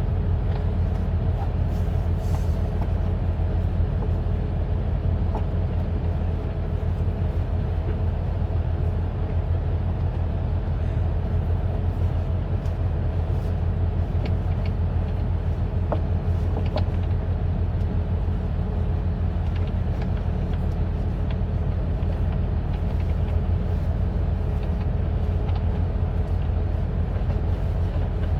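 Steady low rumble of an idling vehicle engine, with a few faint light clicks and taps over it.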